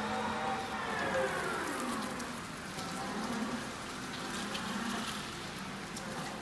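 Still R60-35 electric forklift driving and turning on a concrete floor. The drive motor whines, its pitch falling steeply about two seconds in and then rising again as the truck slows and speeds up, over a steady hiss of tyres.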